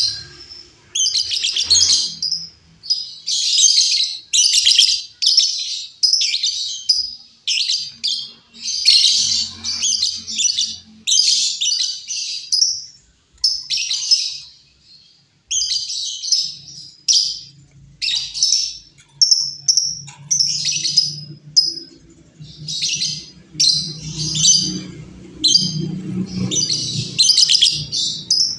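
Female lovebird calling in repeated bursts of shrill, rapid chattering chirps, each under a second long, with short pauses between them.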